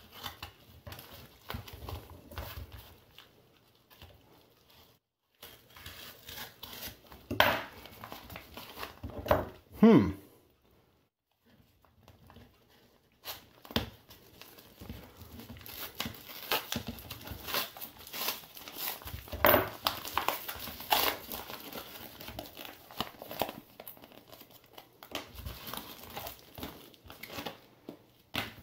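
Yellow padded mail envelope being slit with a hobby knife and torn open: irregular paper and plastic crinkling and tearing, with a few sharper scrapes and a short pause partway through.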